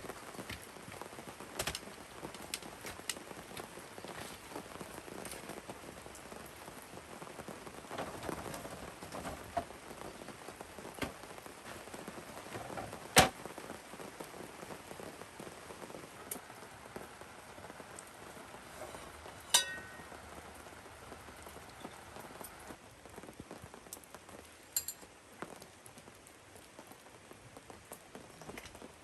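Steady rain falling, with scattered sharp clicks and taps; the loudest comes about 13 seconds in and another near 20 seconds.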